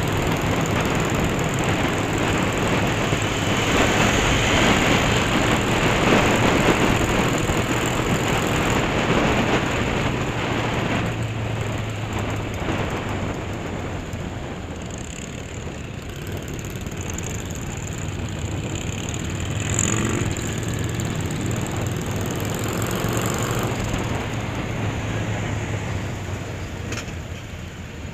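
Honda CB500 parallel-twin motorcycle running steadily at road speed, its engine hum under heavy wind and road rush on the bike-mounted microphone. The rush drops a little about eleven seconds in.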